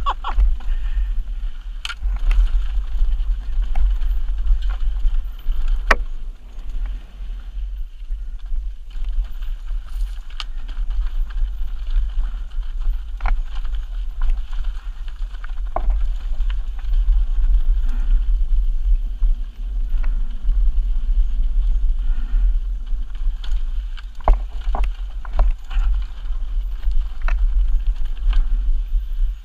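Wind rumbling over an action camera's microphone on a fast mountain-bike descent, with the bike's tyres crunching over rocks and dirt. Scattered sharp clicks and knocks come from the bike rattling over bumps.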